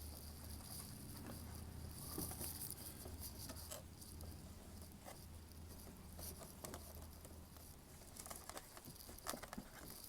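String being pulled and tightened through the holes of a wooden lantern: faint rubbing and scratching with scattered small clicks and knocks, over a steady low hum.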